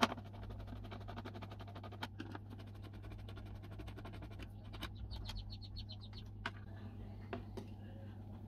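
Screwdriver backing screws out of a plastic car tail-light housing: scattered small clicks, with a short run of fast, squeaky ticks about five seconds in, over a steady low hum.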